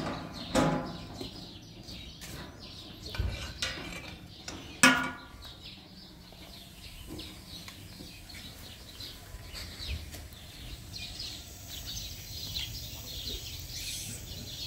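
Metal cookware and utensils clanking a few times, the two loudest strikes ringing briefly, then small birds chirping faintly and repeatedly.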